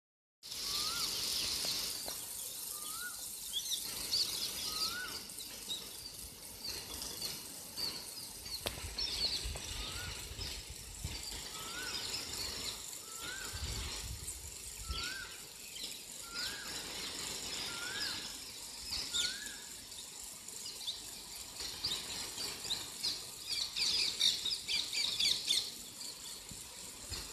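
Rain gun sprinkler spraying a jet of water with a steady hiss, while birds call: a short rising note repeated every second or two, and bursts of higher chirping, strongest near the end.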